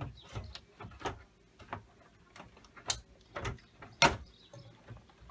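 Plastic back casing of a Gateway One ZX4970G all-in-one computer being pressed and snapped into place by hand: scattered clicks and knocks, the two loudest about three and four seconds in.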